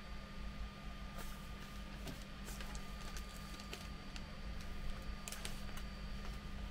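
Scattered light clicks and taps of tweezers and small plastic kit parts being handled, over a steady background hum.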